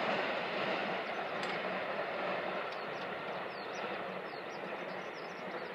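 JR Kyushu 783 series electric limited express train running away into the distance, its rolling rumble slowly fading. Birds start chirping faintly about three seconds in.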